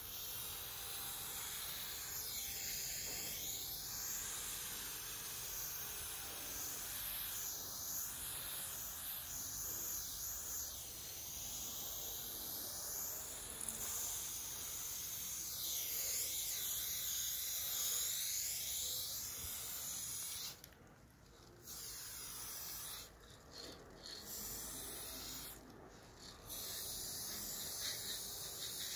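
Aerosol spray-paint can hissing as paint is sprayed onto a wall in one long continuous stroke, then cutting out briefly three times in the last third as the spraying stops and starts.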